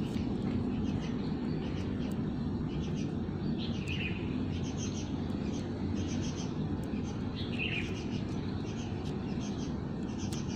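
Small birds chirping in short calls, two of them clearer about four and eight seconds in, over a steady low background hum.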